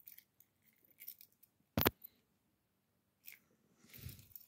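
Small plastic fidget toys being handled and set down: light rustling and soft clicks, with one sharp click a little under two seconds in.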